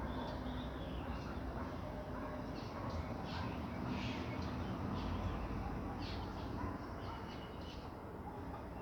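Light rain falling steadily over a low rumble, with a bird giving short calls several times over it.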